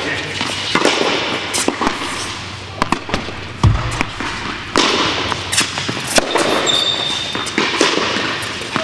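Tennis balls struck by rackets and bouncing on an indoor court: a run of sharp pops and thuds with hall echo, including hits from neighbouring courts. A brief high squeak comes about seven seconds in.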